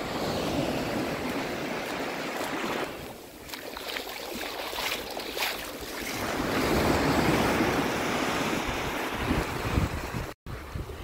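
Small waves washing up and running back over a sandy, pebbly shore, with wind rumbling on the microphone. The wash swells about six seconds in. The sound cuts out for a moment near the end.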